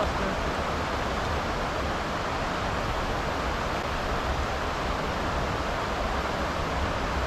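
Steady, even rushing noise with no distinct events: outdoor background of wind or running water, with a low rumble underneath.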